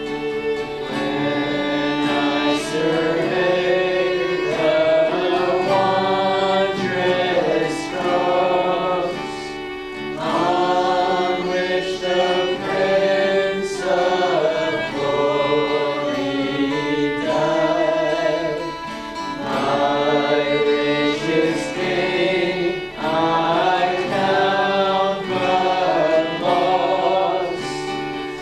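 Church worship music: a group of voices singing a slow hymn in long held phrases, with instrumental accompaniment.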